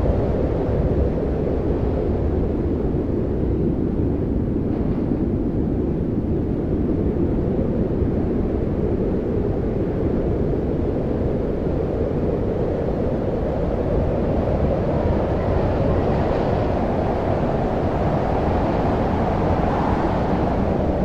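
Strong wind blowing in a steady low rush, swelling slightly near the end.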